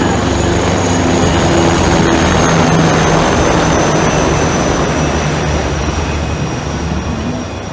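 Military jet aircraft flying low overhead in a display flypast: a loud jet roar builds to a peak about two to three seconds in, then fades, with a thin high whine slowly falling in pitch as it passes.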